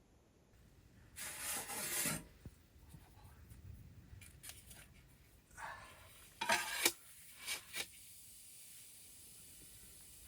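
Several short scraping strokes, as of a spatula working in a pan while an omelet cooks, then a faint steady hiss from about eight seconds in.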